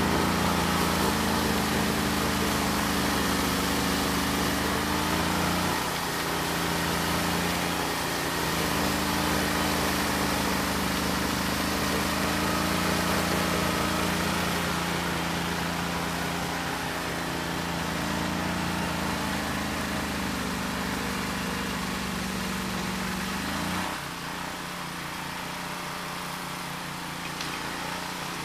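Eliet Snowbob 9018T snow blower's engine running steadily under load as it clears and throws snow. Its note shifts a few times with the load, and for the last few seconds it is lower and quieter.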